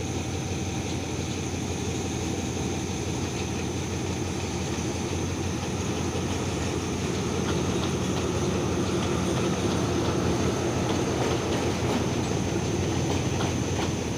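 Diesel locomotive hauling a passenger train past, its engine running with a steady low rumble while the coaches' wheels click over the rail joints, growing a little louder about halfway through as the train draws near.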